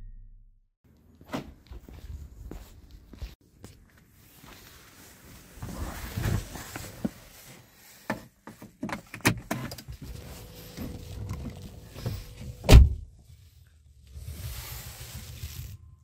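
Handling noises inside an Alfa Romeo 159's cabin: scattered clicks, knocks and rustling as the key fob is put to the dashboard ignition slot, with one loud thump about 13 seconds in.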